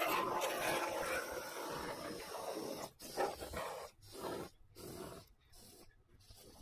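A can of expanding spray foam insulation dispensing through its nozzle into a cavity: a continuous hiss for about three seconds, then several shorter spurts that fade out.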